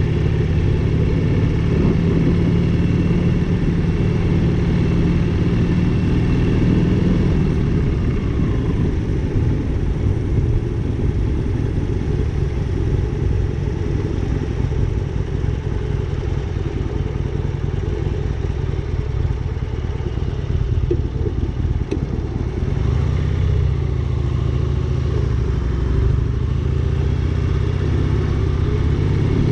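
Motorcycle engine running steadily while riding. The engine note drops about a quarter of the way through and picks up again about three quarters of the way through.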